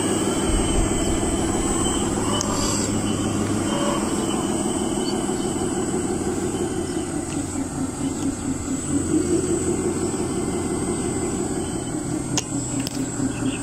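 Radio-controlled CAT wheel loader running as it pushes sand: a steady mechanical drone that swells briefly around nine seconds in, with a couple of sharp clicks near the end.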